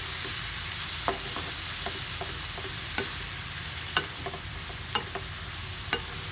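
Sliced bitter melon and meat sizzling in a frying pan, with a steady hiss. A utensil clicks against the pan about once a second as the food is stirred.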